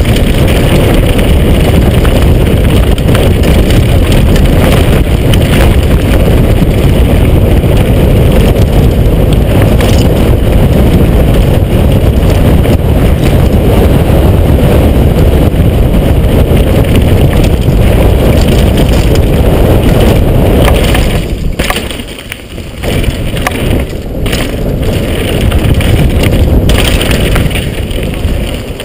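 Loud, steady wind rush buffeting the microphone of a downhill mountain bike moving fast. About three quarters of the way through it drops and turns uneven, swells again, then eases near the end.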